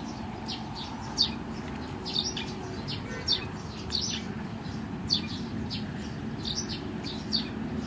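Small birds chirping: short, high, quickly falling notes, often in runs of two or three, repeating throughout, over a steady low background noise.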